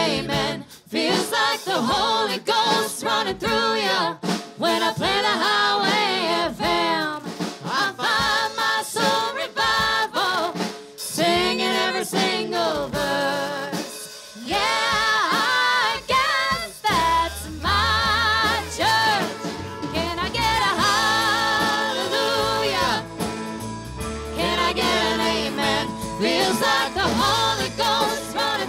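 Live country band: a woman singing lead into a microphone over guitars and drums. A low bass part comes in a little past the middle.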